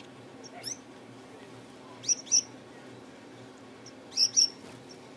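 Caged finch giving short, sharp high chirps: one about half a second in, a quick pair about two seconds in, and another pair near the end, over a steady low hum.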